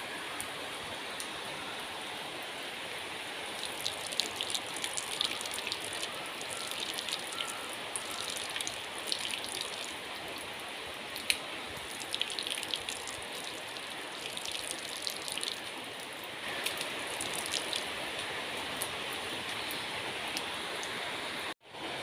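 Steady rain falling, with many sharp drops and drips sounding close by for much of the time. The sound cuts out for a moment near the end.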